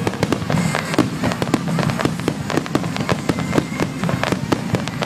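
A fireworks finale: a dense barrage of shells bursting in quick succession, many bangs a second overlapping over a continuous low rumble.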